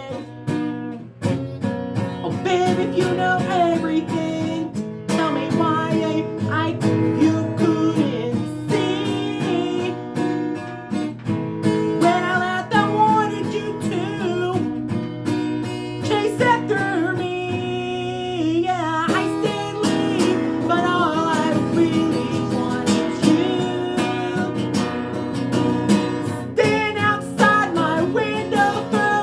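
A person singing a pop-country song over strummed acoustic guitar.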